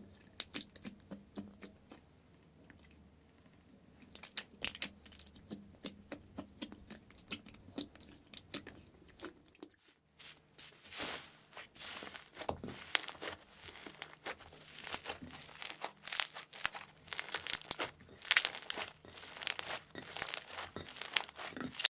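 Slime being worked by hand, giving a run of sharp crackles and pops. They are sparse at first, then come thicker and louder after a short break about ten seconds in.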